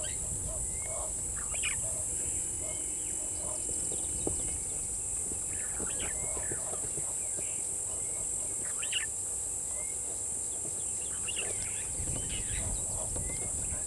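Daytime bush ambience: scattered bird chirps and calls over a steady high-pitched drone, with a quick run of short, evenly spaced low notes at the very start.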